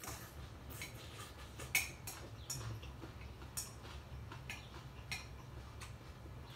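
Close-up eating sounds: irregular clicks and taps of chopsticks and a plastic spoon working in a glass bowl of noodles, with chewing. The strongest tap comes a little under two seconds in, all over a low steady hum.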